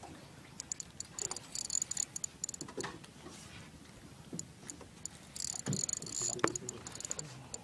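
A fishing reel clicking in rapid, high-pitched bursts while a hooked fish is played on a bent rod, with a few light knocks between the bursts.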